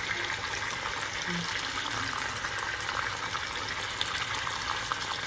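Quince halves sizzling steadily in a frying pan as their sauce cooks down and caramelizes, with a couple of faint ticks near the end.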